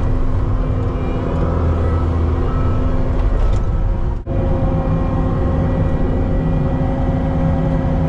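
Vehicle engine running steadily with a low rumble and a steady hum; the sound drops out for an instant about four seconds in, then carries on with a slightly different steady tone.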